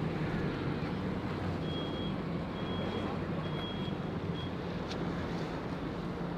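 An engine running steadily at idle, with four short, evenly spaced high beeps of a reversing alarm from about two seconds in. A single click comes near the end.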